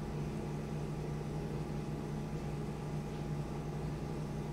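Steady low hum with a faint even hiss: room tone with no distinct event.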